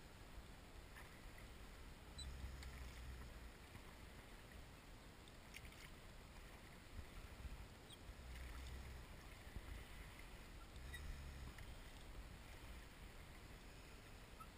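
Faint rowing of an inflatable raft: oar blades moving in the water with soft knocks and ticks from the oars and frame. Low rumbles come and go three times.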